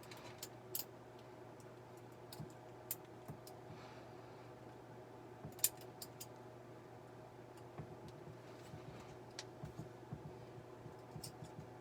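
Lock pick and tension wrench working inside a Squire Vulcan padlock: scattered faint metallic clicks and ticks as the pick works the pins, with one sharper click a little past halfway. A steady low hum runs underneath.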